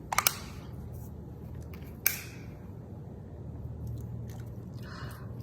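Half-and-half being handled and poured over the shrimp in the pan: a few sharp clicks right at the start and one more about two seconds in, over a faint low hum.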